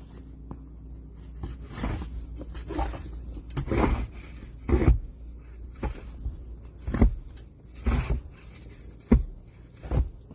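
A series of irregular scraping thumps, about eight in ten seconds, over a low steady rumble.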